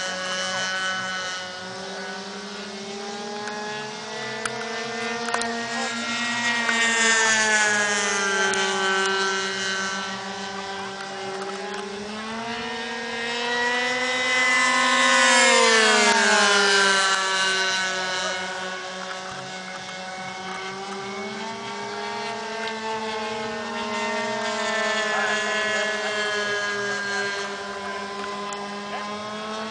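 Engine note of RC model airplanes with OS .91 glow engines, a steady high buzz flying overhead. The pitch rises and falls as the planes come and go, with the loudest, closest pass about halfway through, where the pitch drops sharply as it goes by.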